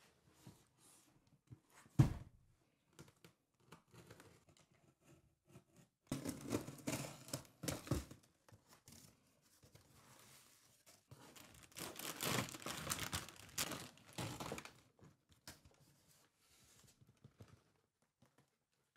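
A taped cardboard parcel being opened and unpacked: a sharp knock about two seconds in, then two stretches of tearing and crinkling as the box and its bubble-wrap and plastic air-cushion packing are handled.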